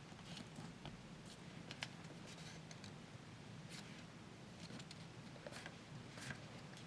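Faint rustles and scattered small clicks of a sheet of paper being folded and creased by hand.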